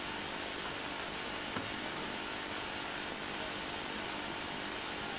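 Steady hiss of rain falling on a stationary Formula 1 car, heard through its onboard camera microphone, with a faint tick about a second and a half in.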